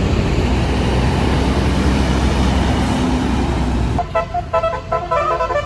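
Tour bus with a loud rushing noise over a low engine rumble, then about four seconds in its basuri multi-tone horn plays a quick melody of short notes.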